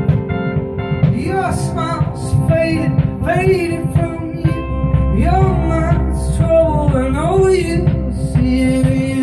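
A live band of acoustic guitar, electric guitars and electric keyboard playing a song. Sung phrases that slide in pitch come in about a second in and run on to near the end.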